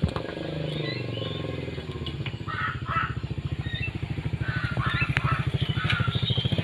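A small engine, most likely a motorcycle's, running with a rapid, even chugging that grows steadily louder. Several short, high chirps sound over it.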